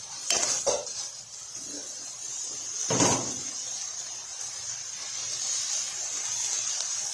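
A pan of chicken dinuguan sizzling steadily as its sauce boils down and dries toward done, a continuous high hiss. A few light knocks in the first second and one louder knock about three seconds in.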